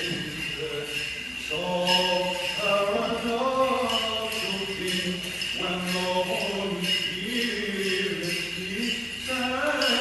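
Byzantine chant sung by a male voice: a slow, ornamented melody held over a low sustained drone note.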